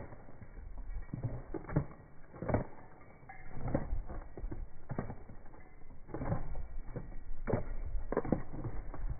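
Shod horses walking on a paved road: hooves clopping with irregular sharp clicks, and saddle leather creaking with their steps.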